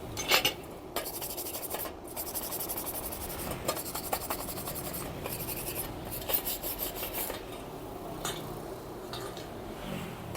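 Fast, scratchy rubbing strokes in short runs over a fresh gasless flux-core MIG weld bead on thin steel box tubing, scrubbing off the dusty soot layer that flux-core wire leaves on the weld.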